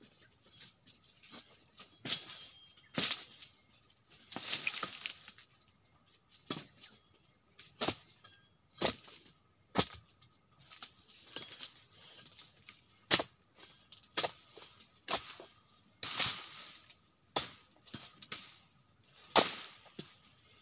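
Sharp chopping strikes of a pruning tool cutting into the frond bases of a young oil palm, coming irregularly at roughly one a second.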